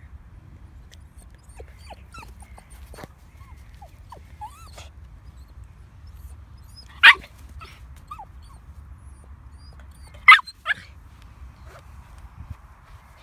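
Pomsky puppy giving two sharp, high yapping barks about three seconds apart, the second followed quickly by a softer one, with faint short whines before them.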